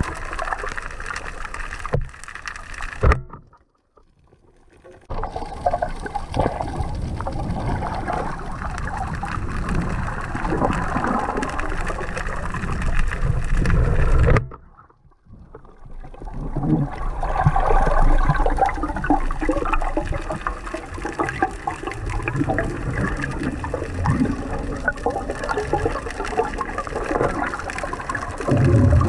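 Water sloshing and gurgling close to the microphone, with two short drops to near silence, about four seconds in and again about fifteen seconds in.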